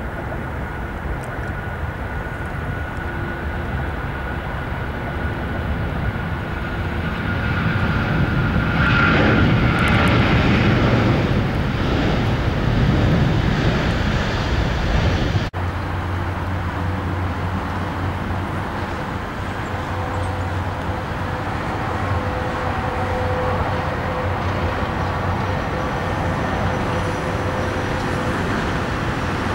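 Boeing 777-300 airliner's twin jet engines at takeoff thrust, a loud roar that swells about eight seconds in and stays strongest for several seconds as the jet rolls past. After a brief dropout about halfway, the roar carries on steadily with a faint whine as the aircraft climbs away.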